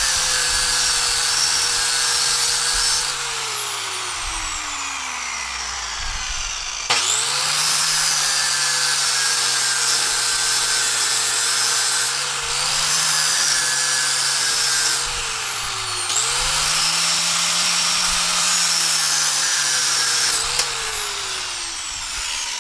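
Handheld electric grinder grinding metal flush, a high-pitched whine over a hiss of grinding. It winds down about three seconds in, starts up again sharply about seven seconds in, dips briefly, restarts once more a little past halfway, and winds down near the end.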